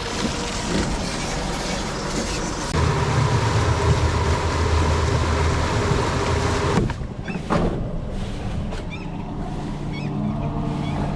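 A boat's motor running under rushing wind and water noise, with a strong low rumble. The rushing falls away abruptly about seven seconds in.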